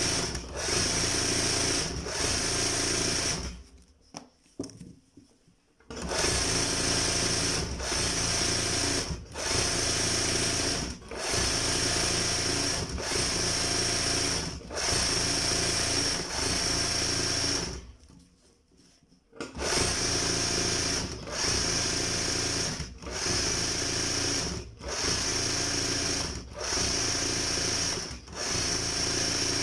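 Embroidery sewing machine running in bursts of a second or so with brief stops between, as the fabric in the hoop is turned a little at a time. The machine stops twice for about two seconds, near four and eighteen seconds in.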